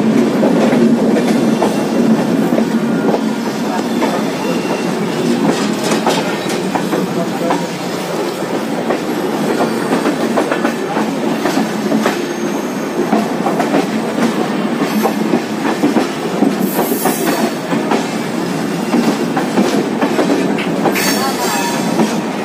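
Passenger train coach running along the track, heard from its open doorway: a steady rumble with the wheels clattering over rail joints and points, and a couple of brief high wheel squeals in the second half.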